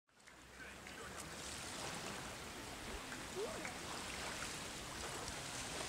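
Seaside ambience: a steady wash of gentle waves and wind, fading in at the start, with a few faint, brief pitched calls in the background.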